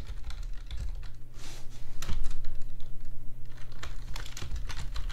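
Typing on a computer keyboard: a quick, uneven run of keystroke clicks over a steady low hum.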